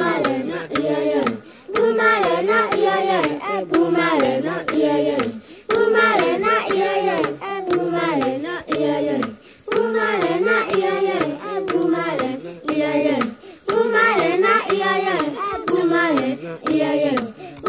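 Recorded African Pygmy group singing: several voices chanting repeated phrases over steady hand clapping, the phrases breaking off briefly about every four seconds.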